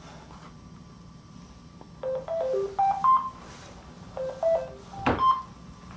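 Phone ringtone: a short electronic melody of about six beeping notes, played twice in a row starting about two seconds in, with a sharp click about five seconds in.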